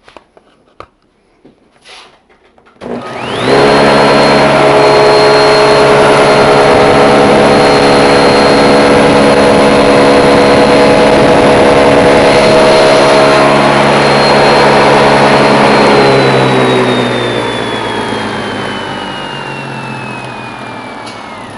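Table saw switched on about three seconds in, coming up to speed and running steadily through a cut with the crosscut sled. It is switched off about three seconds before the end and winds down with a falling whine.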